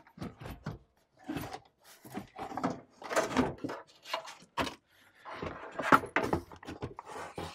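A heavy metal-cased inverter charger being tilted and dragged out of a wooden compartment: a run of irregular scrapes and knocks against the wood, the sharpest a little before six seconds in.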